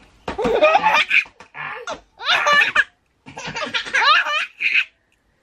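A baby laughing in several loud bursts, stopping a little before the end.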